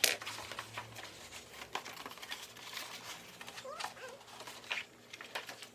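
Paper being cut with scissors and handled: a run of short, irregular snips and crinkles, the sharpest right at the start.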